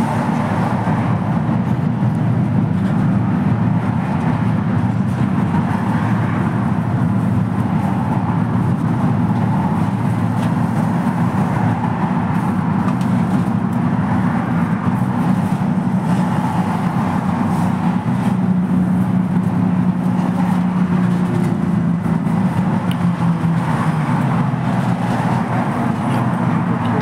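Ride noise inside a moving LAZ E301D1 trolleybus: a steady low rumble of tyres, road and running gear, with a faint low hum for a few seconds past the middle.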